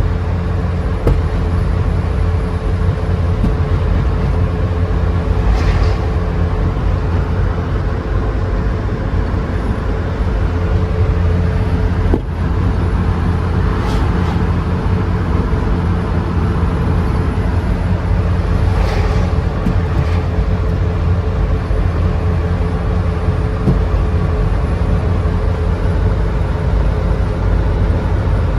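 GAZelle van under way: a steady low drone of engine and road noise with a constant hum, and a few brief rushes of noise in between.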